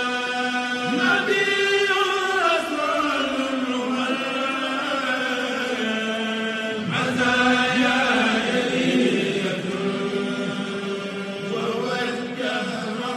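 A man's voice reciting the Quran in a slow, melodic chant, holding long notes that glide up and down, amplified through a microphone. It is an imam leading congregational prayer while the worshippers stand.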